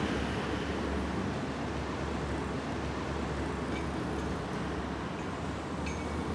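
Steady road traffic noise, a low continuous rumble of passing vehicles.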